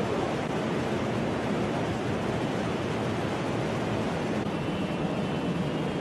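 Tsunami floodwater surging past, a steady dense rushing noise with no distinct impacts. A faint thin high tone joins it about four and a half seconds in.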